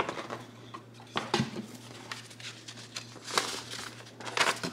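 Paper sheets and cardboard being handled as an opened box is unpacked: a couple of light clicks or taps, then short paper rustles near the end.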